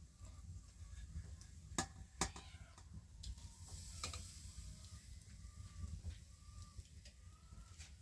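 Hens clucking faintly, in short calls that come more often in the second half, with a few sharp clinks from a steel pot and strainer being handled.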